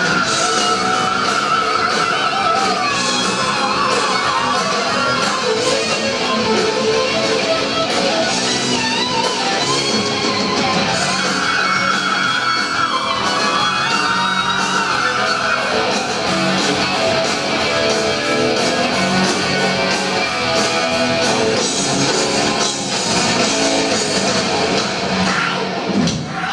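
Heavy metal band playing live: distorted electric guitars over bass guitar and drums, with high held notes that bend in pitch near the start and again around the middle.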